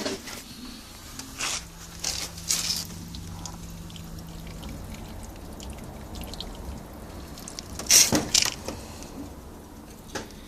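Air and coolant escaping from a GTV V6's leaking radiator, spluttering and gurgling in irregular short spurts, the loudest pair near the end, over a steady background hiss.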